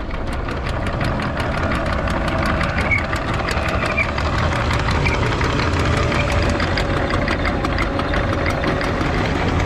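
Anchor windlass hauling in the anchor chain: a steady motor rumble with rapid, evenly spaced clicks as the chain links run over the windlass.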